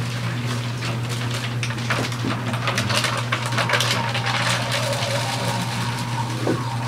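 Sharpened loop trimming tool scraping clay off the base of an inverted bowl turning on a potter's wheel: a continuous scratchy rasp of shavings being cut, heavier from about two seconds in, over a steady low hum.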